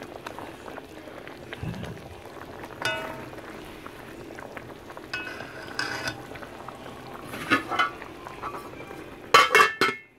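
Potato curry simmering in a pan with a steady bubbling hiss while a metal ladle stirs it, giving a few ringing clinks against the pan. Near the end a metal lid is set on the pan with louder clanks, and the sound drops off sharply.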